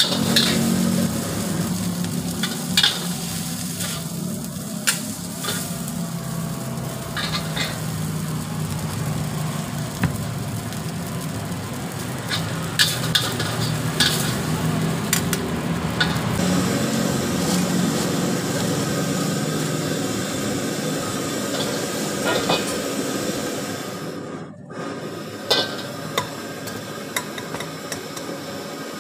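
Noodles stir-frying in a steel wok: a steady sizzle, with the metal ladle scraping and knocking against the wok every few seconds as the noodles are tossed.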